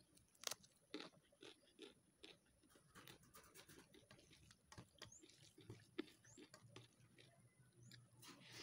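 Faint close-up eating sounds: chewing with moist mouth clicks and smacks, and a few sharper crunches, the loudest about half a second in and a second in.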